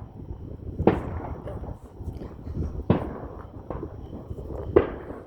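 Fireworks going off: three sharp bangs about two seconds apart, with smaller pops between them, over a constant low rumble.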